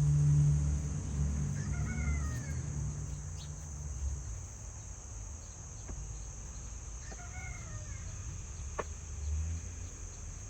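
A chicken calls twice, a short rising-and-falling call each time, about two seconds in and again about seven seconds in. Insects keep up a steady high buzz underneath, with a low rumble loudest at the start.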